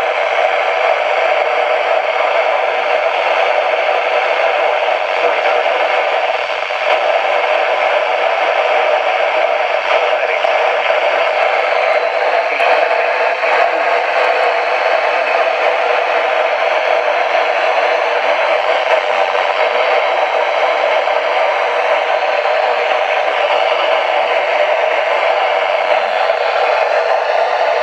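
Steady radio static: an even hiss from a radio receiver with no broadcast coming through.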